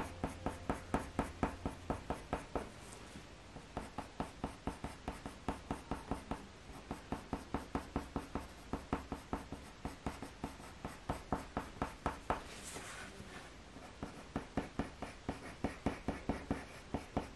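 Faber-Castell Polychromos coloured pencil (Cold Grey I) flicking short fur strokes across hot-pressed watercolour paper: a quick scratch about four or five times a second, in runs with a couple of short pauses.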